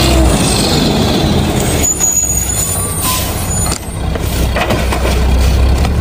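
Rear-loader garbage truck's diesel engine running steadily close by, a loud low hum with noise over it.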